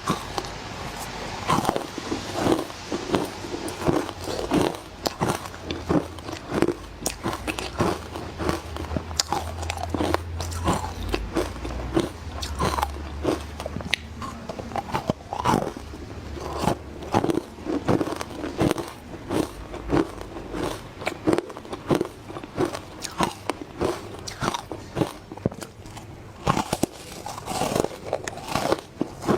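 Close-miked biting and crunching of frozen matcha ice: a steady run of sharp, crisp crunches, about one or two bites a second, with chewing between them.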